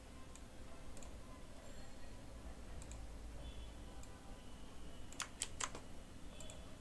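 A few light clicks of a computer mouse and keyboard while text is selected and copied, with a quick cluster of three about five seconds in, over a steady low hum.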